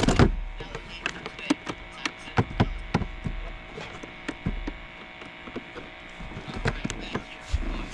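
Scattered sharp taps and knocks at irregular intervals over a steady electrical hum, the loudest knock right at the start.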